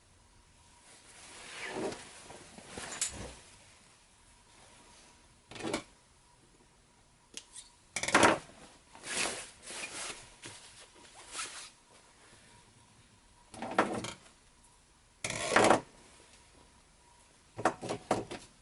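Fabric rustling and handling noises of a sewn jacket being worked through and turned right side out, in irregular short bursts with a few sharper knocks.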